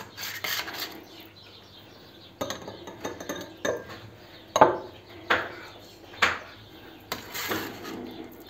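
Metal spatula scraping and knocking against a round metal tray as it lifts out cubes of set starch pudding, a sharp knock about once a second.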